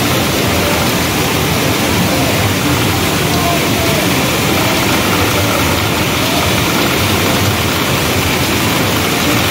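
Loud, steady din of a pachinko parlour: a dense wash of noise from the rows of machines, with faint snatches of voices mixed in.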